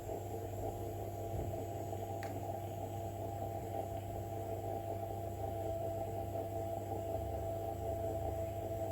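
A steady low hum with several steady tones above it, and a faint click about two seconds in.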